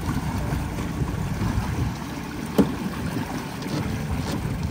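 Boat underway on open sea: low rumble of the Suzuki outboard mixed with water rushing past the hull and wind on the microphone. A single sharp knock about two and a half seconds in.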